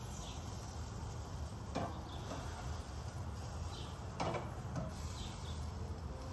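Metal tongs clicking and scraping against a kamado grill grate as sausages are turned, three short clicks over a steady low hum.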